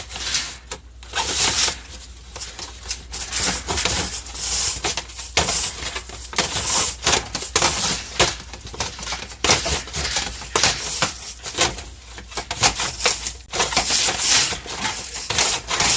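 Irregular scraping, rustling and clattering from the lint being cleaned out of the inside of a clogged clothes dryer, with quick clicks and scrapes coming close together and no steady motor hum.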